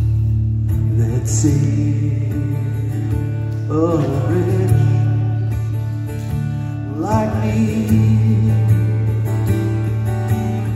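A man singing slow, long-held notes to a strummed acoustic guitar.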